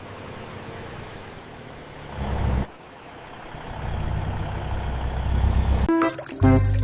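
A motor vehicle's engine rumbling, with a short burst about two seconds in and a longer stretch from about three and a half seconds. Near the end, music with clear pitched notes comes in louder.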